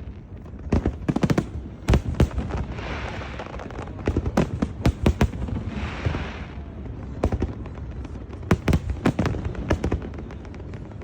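Aerial fireworks going off in rapid clusters of sharp bangs, with two short spells of crackling hiss about three and six seconds in.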